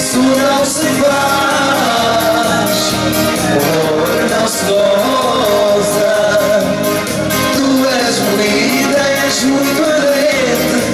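Upbeat popular dance music with a steady beat and a singer, played through a PA system.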